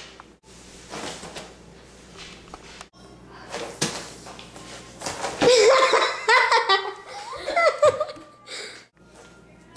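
A young girl laughing and giggling, loudest for about three seconds starting around halfway through, with a high, wavering voice.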